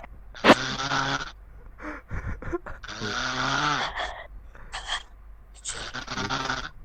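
A person snoring loudly, heard over a Discord voice call: three long snores, one about every two and a half seconds, with short softer snorts between them.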